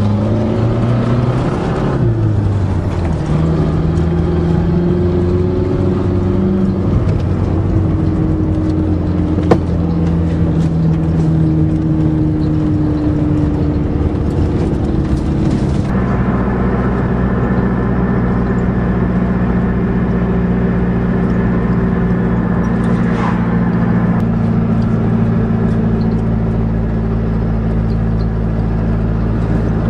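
Dodge Aries wagon driving on the road while pulling a loaded trailer: a steady engine and road drone with several engine tones. Its pitch shifts a couple of times, notably about two seconds in and again about halfway through.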